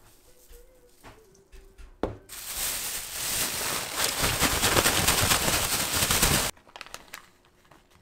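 Plastic bag of corn kernels being shaken, crinkling loudly and steadily for about four seconds before stopping abruptly, after a single sharp click about two seconds in.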